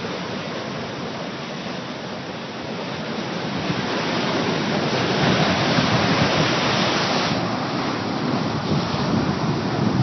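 Ocean surf breaking against a rocky coast, a continuous rushing wash that builds to a louder surge about halfway through, eases, and swells again near the end.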